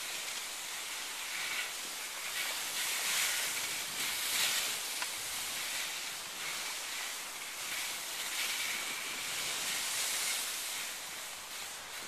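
Skis sliding over snow on a downhill run, a steady hiss that swells and eases, with wind on the microphone.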